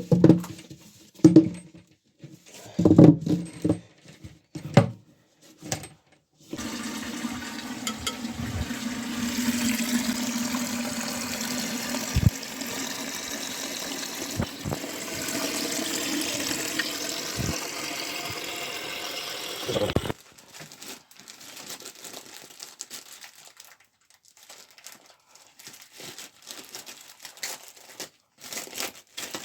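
Newly fitted toilet flushing: a steady rush of water lasting about thirteen seconds that stops abruptly, preceded by a few short knocks.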